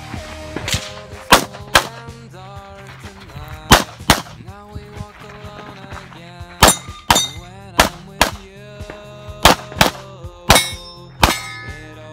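STI Edge pistol in .40 S&W fired about a dozen times during an IPSC stage, mostly in quick pairs about 0.4 s apart, over background music.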